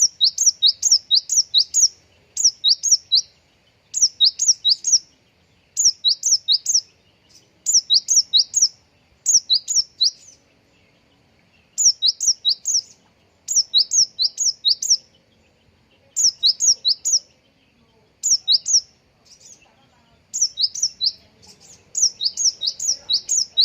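Konin songbird singing: quick groups of about four to six high, sharply down-slurred chirps, a new group every second or two with short pauses between. These are imitated gelatik (Java sparrow) phrases.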